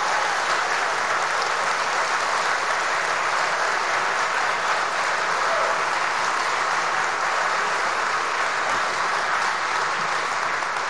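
Audience applauding steadily, easing off just before the end.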